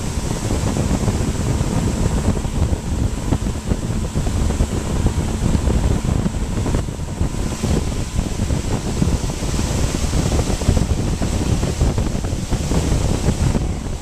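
Wind buffeting the microphone of a moving boat, a steady rumble, with a faint steady motor hum underneath.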